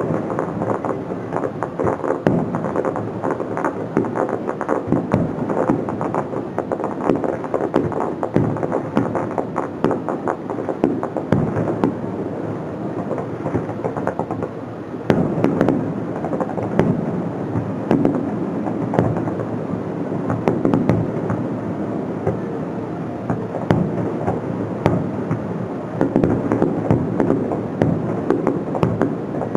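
Fireworks bursting and crackling in rapid, overlapping succession over music, growing louder about halfway through.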